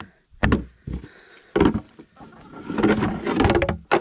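Plastic buckets and their lid being handled: a few separate knocks, then a longer stretch of clattering from about two and a half seconds in.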